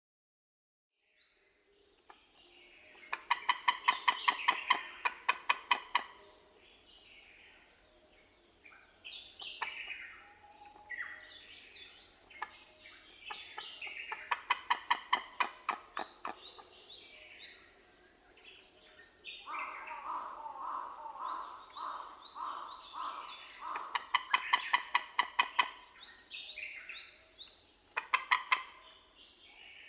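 White-tailed eagles calling: about four bouts of fast, yelping notes, roughly ten a second, with shorter scattered calls between the bouts.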